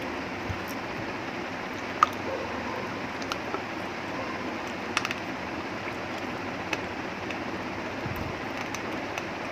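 A person chewing a mouthful of chicken and rice, with a few short wet clicks and smacks from the mouth, the sharpest about two seconds in and a quick cluster about five seconds in, over a steady background hiss.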